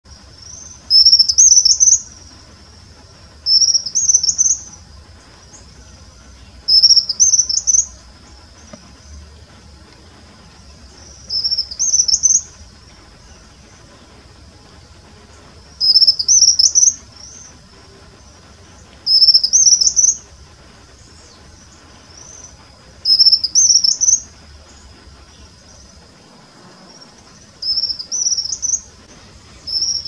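White-throated kingbird singing: short, high-pitched phrases of about a second each, repeated nine times at intervals of three to four seconds.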